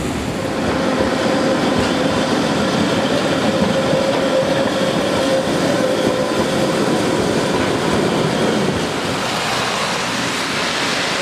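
Vintage electric tram passing close on rails: the rumble and clatter of its wheels on the track, with a steady whine from its motors that fades as it goes by.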